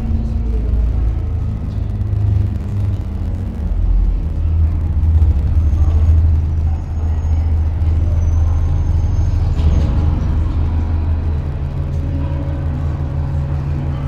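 Double-decker bus engine running as the bus drives along, heard from inside the bus, with an echo effect laid over the sound. The low engine note steps up a little about eleven seconds in.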